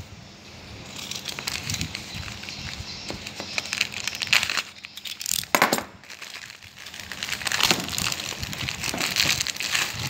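Plastic courier mailer and its inner plastic bag crinkling and rustling as they are handled and pulled open by hand, in irregular crackles with a sharper, louder crackle about five and a half seconds in.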